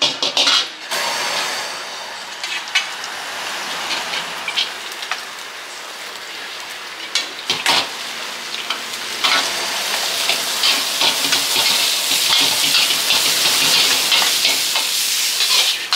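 Food frying in a hot wok, a steady sizzling hiss that grows louder about nine seconds in, with a few sharp clicks of a metal spoon against a metal bowl.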